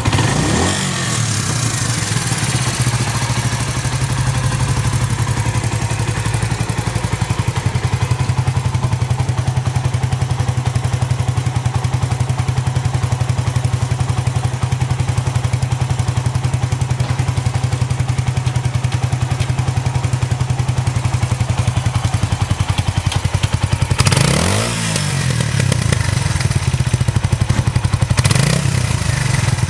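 Suzuki Volty's single-cylinder four-stroke engine idling steadily, the revs settling down from a blip at the start. Near the end the throttle is blipped twice, the revs rising and dropping back each time. The idle is listed as stable with no abnormal noise.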